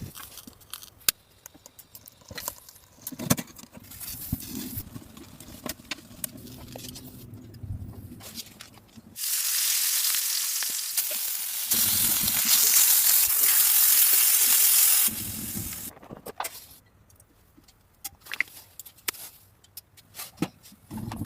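Food frying in a pan: a loud, even sizzle that starts suddenly about nine seconds in and stops suddenly about six seconds later, with scattered small knocks and clicks before and after.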